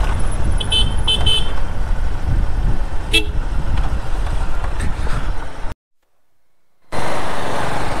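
Bajaj Pulsar motorcycle ridden on a country road, with wind rumble on the helmet-camera microphone over the engine. A couple of short high beeps sound about a second in, and the sound cuts out for about a second near the end before resuming.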